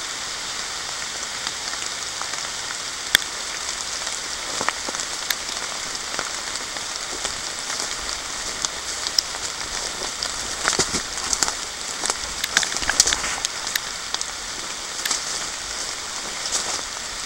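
Steady moderate rain falling on foliage and water, an even hiss with many sharp, close ticks scattered through it, thickest about ten to fourteen seconds in.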